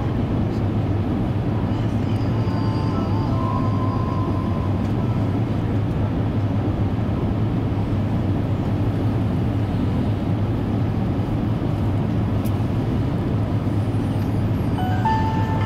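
Steady low rumble and rushing air noise inside the cabin of an Airbus A350-900 airliner, even and unbroken.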